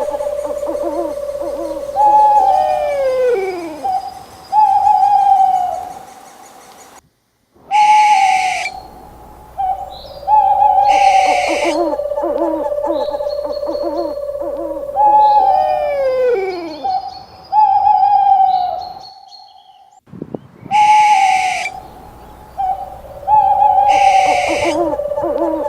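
Owl calling: repeated hoots with falling glides over held steady notes, broken by about five short bursts of harsh hissing.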